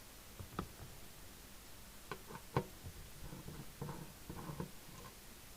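Scattered light clicks and knocks with a stretch of rustling about midway, as of things being handled on a workbench.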